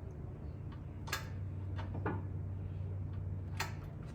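Hydraulic press being worked slowly to push a part onto a motor shaft: sharp clicks about once a second over a steady low hum.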